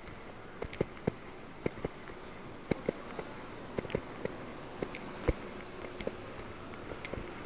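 Hard-soled footsteps clicking on pavement at a walking pace, about one or two sharp steps a second, over steady background street noise.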